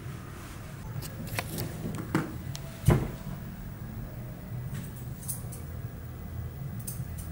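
Curved grooming scissors snipping fur around a dog's face: a scattering of short, sharp metallic clicks, the loudest about three seconds in, over a low steady hum.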